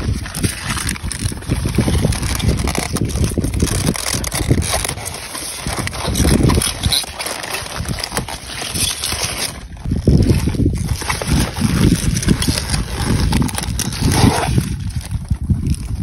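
Gusty wind buffeting the microphone: a low rumble that swells and drops every second or two.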